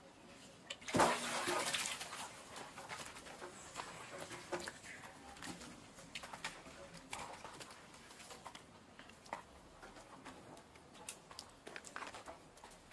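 Water splashing in a large clay water jar as long-tailed macaques climb down into it and swim: one loud splash about a second in, then scattered small splashes and scrabbling taps.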